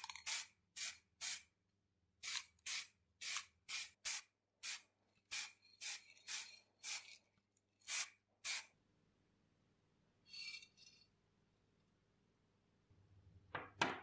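Aerosol heat-resistant spray enamel being sprayed in short bursts: about seventeen quick hisses over the first eight seconds or so, some in quick pairs. A fainter short hiss comes about ten seconds in, and a sharp, louder sound right at the end.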